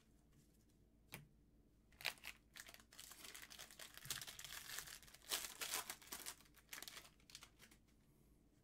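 Plastic trading-card pack wrapper being torn open and crinkled: a single sharp tap about a second in, then about five seconds of crackling and tearing.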